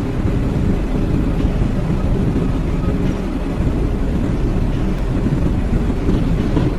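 A steady low rumble with no clear pitch, of the kind made by a running vehicle or heavy machine.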